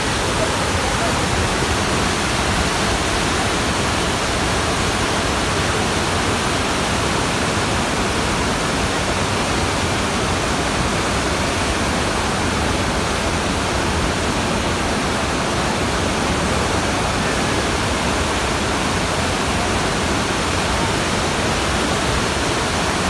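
Waterfall and whitewater rapids rushing over rocks: a loud, steady wash of noise with no let-up.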